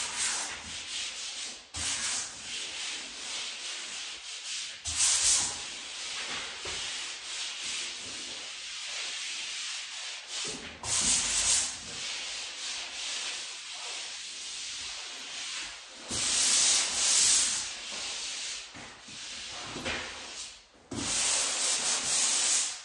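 Drywall joint compound being hand-sanded with a round sanding pad, a continuous rough rubbing that swells and fades with the strokes across the wall, with a few brief pauses. It is the light final pass that knocks down anything sticking out of the dried mud before paint.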